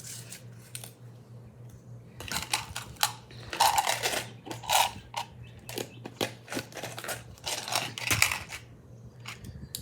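Small metal snap-button charms clinking and clattering against each other as they are handled, an irregular run of sharp clicks.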